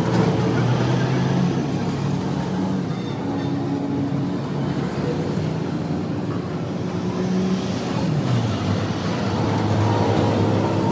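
A motor running steadily with a low hum whose pitch shifts a few times, sliding down about eight seconds in.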